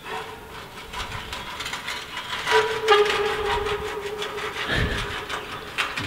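Metal bunker door being forced open, its hinges grinding and scraping, with a long steady squeal starting about two and a half seconds in and a low thump near the end.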